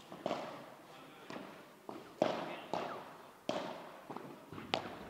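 Padel ball being struck back and forth in a rally: about seven sharp pops from paddle hits and bounces off the court and walls, spaced irregularly. Each pop is followed by a short echoing decay.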